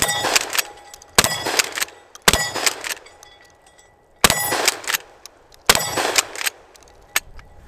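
Mossberg 590S 12-gauge pump-action shotgun firing five 2¾-inch high-velocity birdshot loads in quick succession, one to two seconds apart. Each blast is followed by a short metallic clatter as the pump is worked. The shells feed and fire with no hang-ups.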